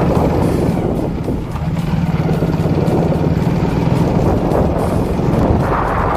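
A vehicle running on the road, with a steady low engine hum under dense road and wind noise.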